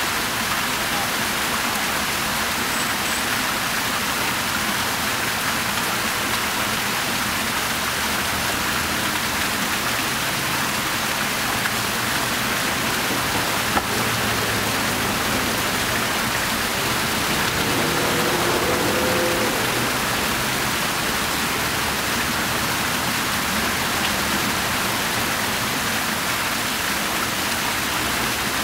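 Fountain water splashing steadily, spilling from the tiered bowl and from arcing jets into the basin, with a slight swell for a couple of seconds a little past the middle.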